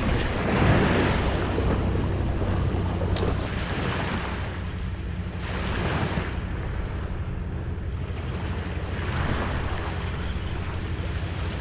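Surf washing on a beach in swells every few seconds, over steady wind noise on the microphone.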